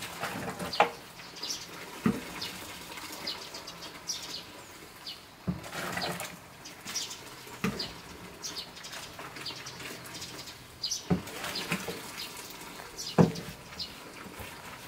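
Liquid sloshing and being poured, with a sharp knock every couple of seconds and many short high chirps in between.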